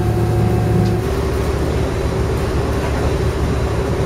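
Engine of a Daewoo-built diesel railcar running steadily, its pitch shifting slightly about a second in.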